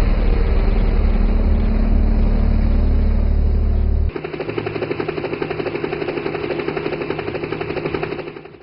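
A small electric RC toy helicopter's motor and rotor running with a rapid, steady chop. About four seconds in the sound changes abruptly from a deep rumble to a lighter, faster chopping with a steady whine, then fades out near the end.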